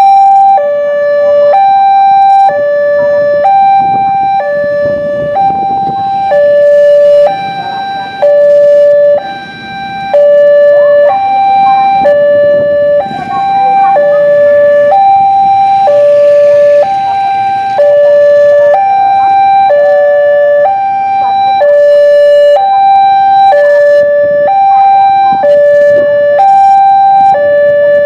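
Indonesian railway level-crossing alarm sounding a two-note electronic high–low warning, the two tones alternating evenly, each a little over half a second, at a medium-slow tempo.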